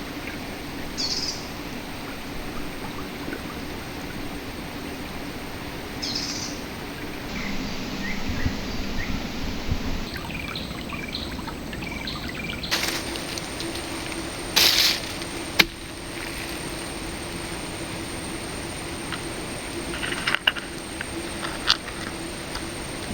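Shallow river flowing steadily, with a few short bird chirps and a couple of sharp knocks in the second half.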